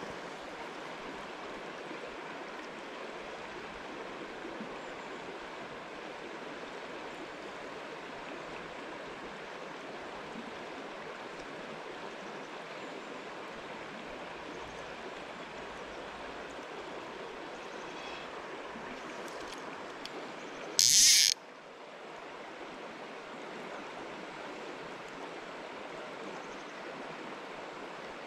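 River water flowing with a steady, even rush. About two-thirds of the way through comes one brief, loud hiss of about half a second, the loudest sound.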